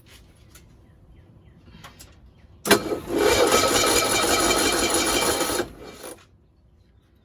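1965 Cushman Truckster's engine starting abruptly and running steadily for about three seconds, then cutting out. It will not keep running while its carburetor mixture screws are being adjusted and a stuck float is suspected.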